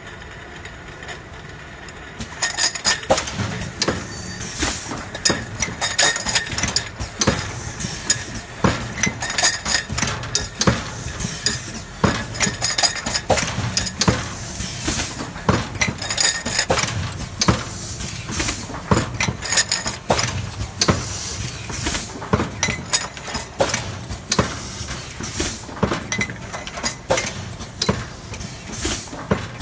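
Automatic bag-on-valve aerosol filling machine running: a dense clatter of metallic clinks and knocks as the cans index round the turret and the pneumatic heads cycle, in clusters every couple of seconds over a steady low hum. The clatter starts about two seconds in.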